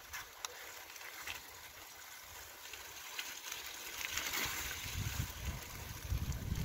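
Bicycle tyres rolling through wet slush and melting snow, a wet hiss with a few small clicks. Wind rumbles on the microphone from about two-thirds of the way in.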